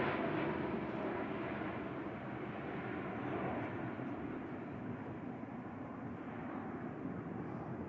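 Jet airliner departing, its engine noise a steady rush that slowly fades as the aircraft climbs away.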